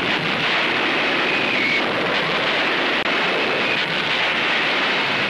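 A steady, dense rushing noise, like wind or a roar, with faint high whistling tones drifting over it.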